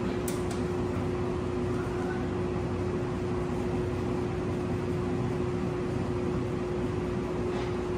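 Steady mechanical hum with one constant tone, like a fan or air-conditioning unit running, with two faint clicks just after the start.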